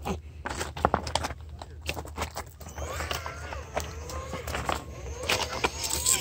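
RC rock crawler's brushless outrunner motor whining, its pitch rising and falling with the throttle as the truck climbs over river cobbles. Stones clack and knock throughout, most densely in the first half.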